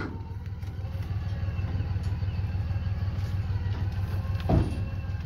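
Steady low motor drone while a log is winched onto a trailer, with one short thud about four and a half seconds in.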